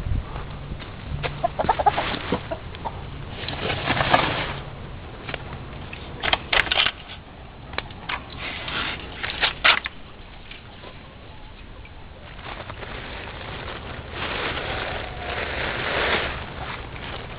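Domestic hens clucking and cackling in separate loud bursts, with a longer run of calls near the end.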